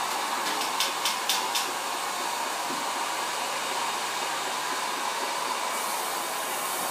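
Honey extractor spinning frames of comb: a steady motor whir with a constant hum, and a few quick clicks about a second in.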